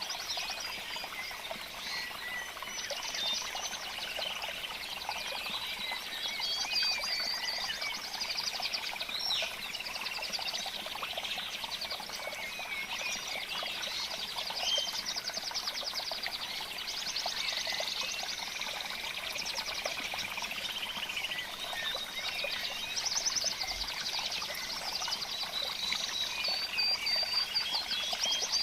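Dense chorus of small birds chirping, whistling and trilling, many calls overlapping at once, high-pitched and continuous.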